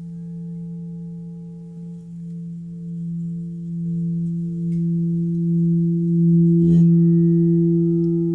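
Singing bowl ringing with a deep steady tone and a wavering pulsing overtone, slowly swelling in loudness. A light knock comes a little under seven seconds in, after which higher overtones ring out as well.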